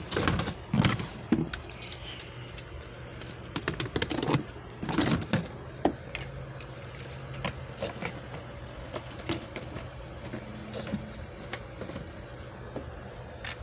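Handling noise as toy packaging is put back: plastic and cardboard pieces rustling and clicking. The rustling is heavier in the first second and again around four to five seconds in, then thins to light scattered clicks over a steady low hum.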